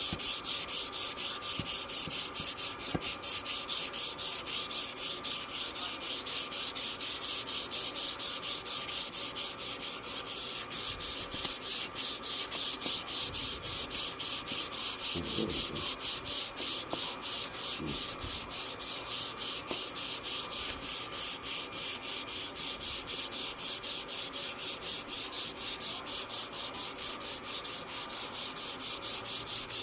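Sandpaper rubbed by hand over a wooden plaque in quick, even back-and-forth strokes, about four a second, for the final sanding.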